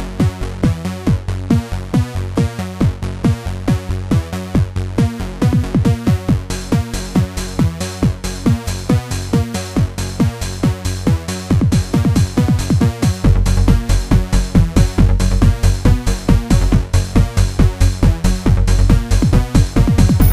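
Electronic trance-style background music with a steady fast beat; a heavier bass comes in about two-thirds of the way through.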